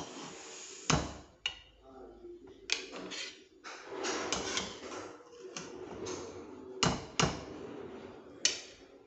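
Scattered metal clanks and knocks of a steel slotted spoon against a steel kadhai and nearby pots, about a dozen separate hits, as boiled gram-flour rolls are lifted out of their water.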